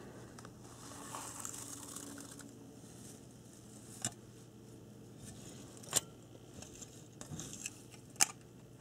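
Soft rustling of fibrous packing material as a brass HO model locomotive is lifted out of its box and handled, with three short light clicks, the last and loudest near the end.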